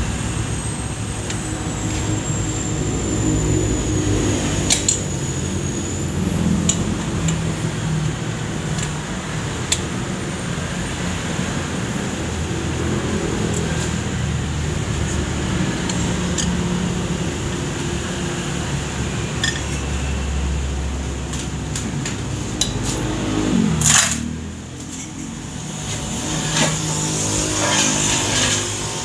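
An engine running steadily, with scattered light metal clinks of tools and one loud clank about three-quarters of the way through.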